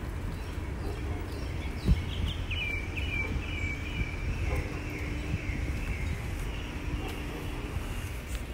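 Outdoor background: a steady low rumble with a faint, high, wavering chirp-like sound about two to five seconds in.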